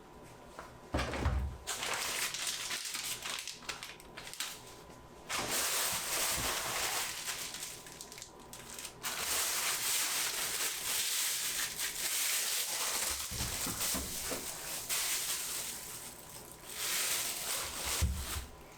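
Packaging crinkling and rustling as it is handled, in several long stretches, with a few soft bumps.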